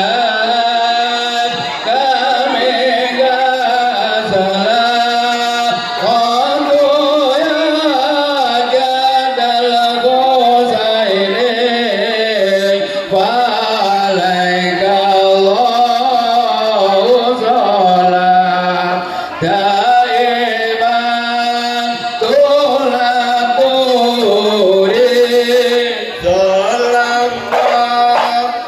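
Music with a singing voice carrying a wavering melody over a steady low drone.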